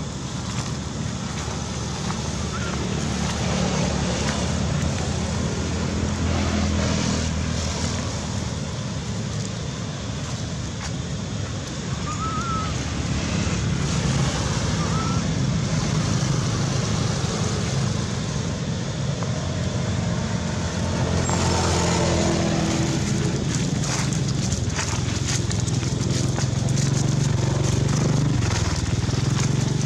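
Steady low outdoor rumble with a hiss over it. A few faint short chirps come around the middle, and from about two-thirds of the way through a crackling joins in.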